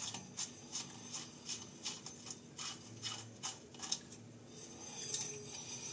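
Motorcycle front wheel turning, with a light, regular squeaky tick about two and a half times a second that fades out about four seconds in, leaving a faint hiss. The squeak is traced to a dry, rusted cable at the wheel.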